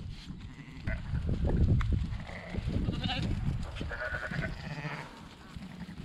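Sheep bleating, several short calls from the flock, over a low rumbling noise that is loudest about a second and a half in.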